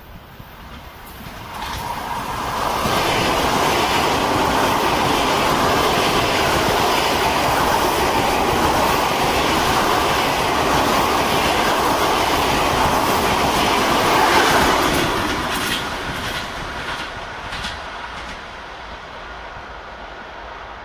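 ЭП2Д electric multiple unit passing at speed. The sound of wheels on the rails builds over the first few seconds, stays loud while the cars go by, and fades over the last several seconds.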